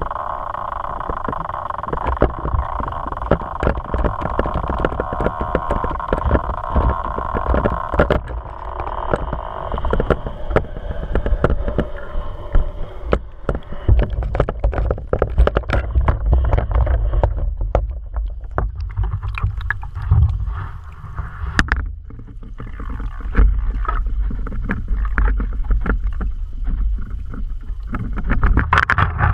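Muffled underwater rumble and water movement picked up by a pole-mounted camera in a waterproof housing, with frequent small clicks and knocks. A steady hum sits under it for about the first eight seconds, then fades.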